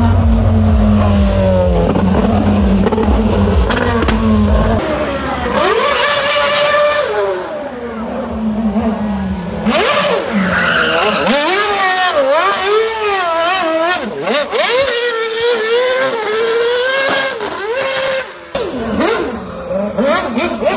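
Red Bull RB7 Formula 1 car's 2.4-litre V8 revving hard as it is driven around and spun in donuts, its pitch swinging up and down again and again, with some tyre squeal.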